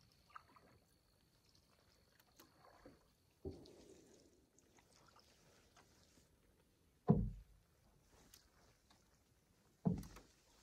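Canoe paddle strokes in calm water: three low splashing pulls about three seconds apart, the second the loudest, with quiet between them.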